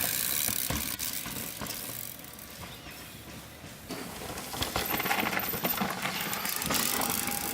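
Downhill mountain bike rattling over a rough dirt trail, with tyre noise and many short sharp clicks and clatters from the bike. It goes quieter for a moment about two seconds in, then picks up again.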